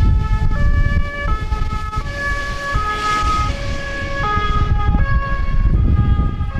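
Two-tone sirens of several approaching airport fire engines, their alternating notes overlapping out of step with each other over a low rumble.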